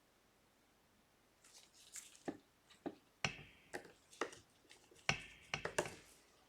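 Small repair tools and parts clicking and tapping on an opened iPhone 12 during reassembly: a string of about a dozen light clicks begins about a second and a half in, and a couple of them ring briefly.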